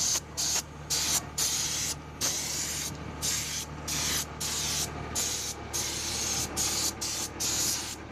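Compressed-air paint spray gun hissing in repeated short bursts of under a second to about a second each, as the trigger is pulled and released to lay down a coat of paint. Its air comes from a truck's air-brake tanks. A steady low hum runs underneath.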